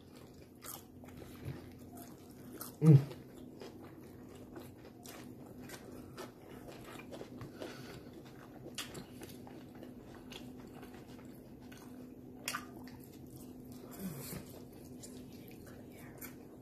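A person chewing and biting into a fast-food sandwich and fried chicken wings close to the microphone: faint, irregular small crunches and mouth crackles, over a faint steady hum. About three seconds in there is a brief low murmur from the eater.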